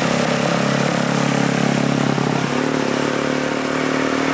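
Tour bus passing close by: a steady low droning tone that shifts pitch about two and a half seconds in, over steady street noise.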